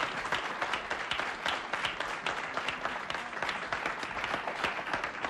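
Studio audience applauding, many people clapping at once at a steady level.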